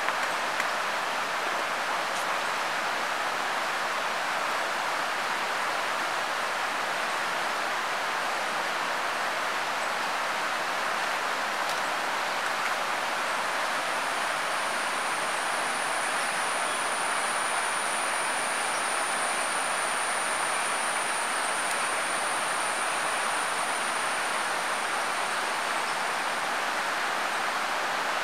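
Steady rush of flowing stream water, even throughout, with a few light taps in the first second. A thin, steady high-pitched whine comes in about halfway through and fades out near the end.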